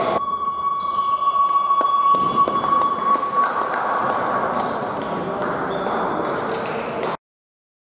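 Sports-hall scoreboard horn sounding one steady electronic tone for about three and a half seconds, fading out by about five seconds, with the clock at 0:00 marking the end of a period. Hall noise and a few sharp taps lie under it, and the sound cuts off abruptly about seven seconds in.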